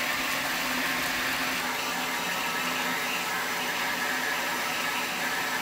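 Steady hiss of steam from a class 15F steam locomotive, heard on its footplate, with a faint low hum under it.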